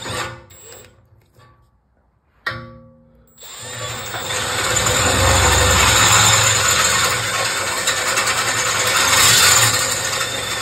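Cordless drill with a 21/64 bit drilling out a mangled bolt hole in metal, to make way for a Helicoil tap. It runs briefly at the start and again about two and a half seconds in, then drills steadily from about three and a half seconds on.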